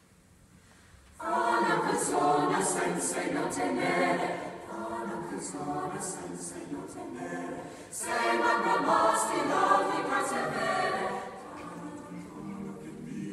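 Mixed-voice high-school chamber choir singing an Italian Renaissance canzonetta, the voices coming in together about a second in. A new, louder phrase starts about eight seconds in, and the singing grows softer near the end.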